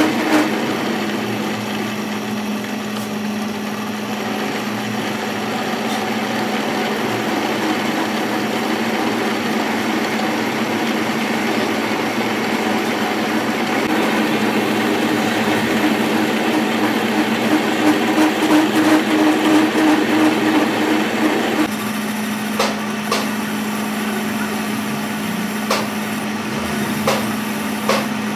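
A workshop machine running with a steady hum and a harsh working noise over it that cuts off about two-thirds of the way through, leaving the machine humming with a few sharp knocks and clicks.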